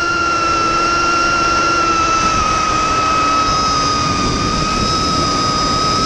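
Vortex 250 Pro FPV quadcopter's brushless motors and HQ 5x4x4 propellers whining steadily in flight on a 4S battery. The pitch sags slightly through the middle and rises again near the end, over rough wind noise.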